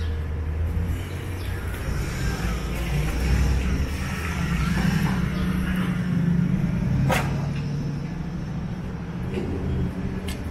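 City street traffic with a heavy vehicle's engine running close by, its low hum shifting in pitch as it moves off. A single sharp click sounds about seven seconds in.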